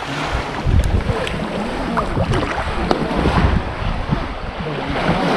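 Muddy water sloshing and splashing as people wade through a shallow stream, with gusts of wind rumbling on the microphone.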